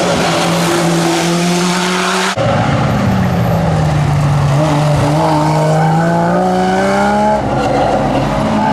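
Rally cars' engines on a tarmac stage, one car after another through tight bends. A Ford Sierra Cosworth is on throttle with a fairly steady engine note. After a sudden cut about two seconds in, a Porsche 911's flat-six drops in pitch into the corner and then climbs as it accelerates out. Near the end another car's engine takes over.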